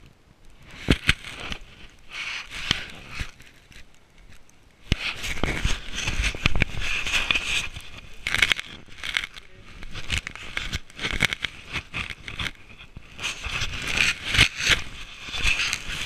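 Footsteps crunching through deep fresh snow, mixed with a coat rustling and rubbing against the microphone; it gets louder and busier about five seconds in.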